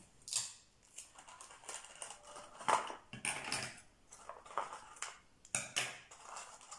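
Close handling of craft materials: a run of short, irregular scratchy rasps and crinkles as adhesive tape is pulled and pressed down onto a plastic bottle bottom and paper, the loudest about a third of the way in.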